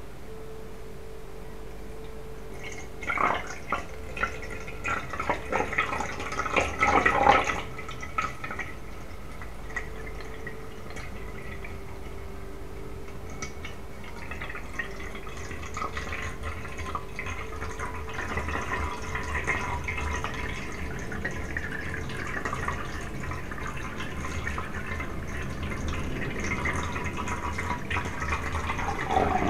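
Water dripping and splashing from an upside-down bottle into a glass jar onto a shungite pyramid, with a burst of loud drips a few seconds in. It then settles into a steadier trickle that slowly grows louder as the jar fills.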